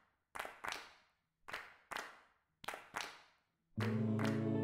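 Intro music: three pairs of sharp, echoing percussive hits like hand claps, then a held chord that comes in near the end.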